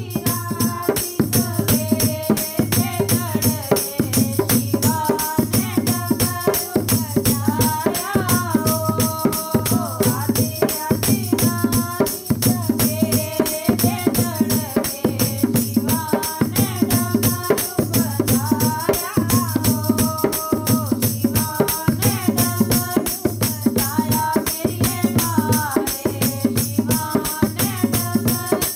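Devotional Dogri bhajan music: a fast, steady percussion beat over a bass pulse about once a second, with a melody line moving above it.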